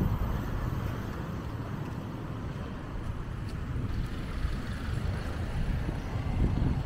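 Low rumble of road traffic and wind buffeting the microphone, swelling in gusts at the start and again near the end.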